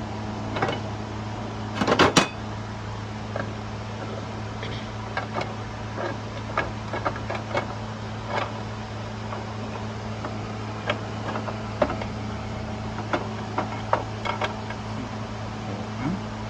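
Scattered clicks and knocks of tools and parts being handled, with a cluster of loud knocks about two seconds in, over a steady low hum.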